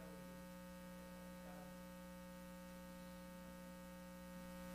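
Faint, steady electrical mains hum with a stack of overtones, growing slightly louder near the end.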